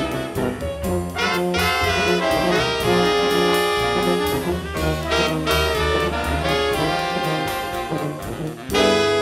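Live jazz ensemble of saxophones, trumpet, trombone and tuba with piano, double bass and drums, the horns playing held chords over steady bass notes. The band gets louder near the end.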